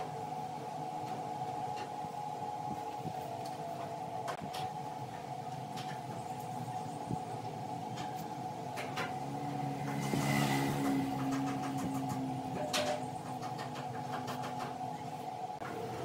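Wood lathe running with a steady motor whine and scattered light clicks. It gets louder for a couple of seconds about ten seconds in.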